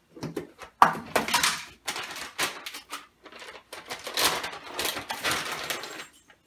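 A plastic snack bag crinkling in irregular bursts as hands reach into it, with a sharp knock about a second in.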